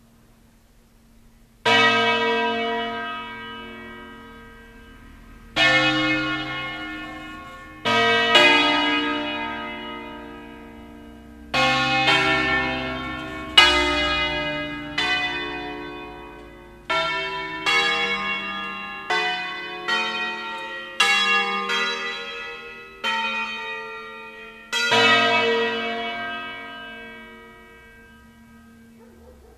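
Eight-bell B-flat peal of church bells, mostly cast by Pruneri in 1909, rung one stroke at a time in a slow, uneven melody of about eighteen strokes, starting about two seconds in. Each stroke rings out and fades, and the last one dies away through the final few seconds.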